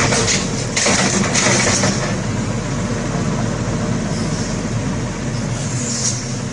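A motor running steadily, with bursts of hiss in the first two seconds.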